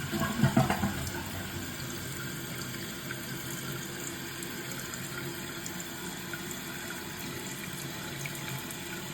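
Toilet tank refilling through a newly installed fill valve: a steady hiss of running water, after the last gurgles of a flush in the first second.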